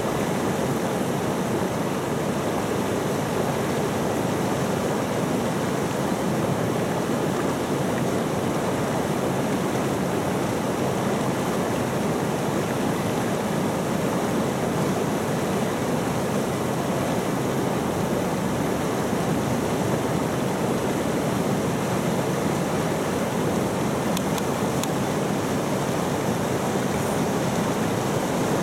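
Fast mountain river running close by: a steady, unbroken rush of water.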